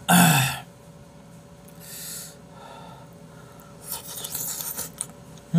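A man eating hot potato sujebi soup from a spoon: a short voiced exclamation at the start, then soft slurping, with a longer noisy slurp and mouth sounds about four seconds in and a brief hum near the end.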